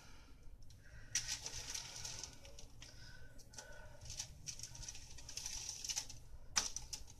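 Aluminum foil crinkling and rustling as hands move things about on it, with a sharper crackle near the end.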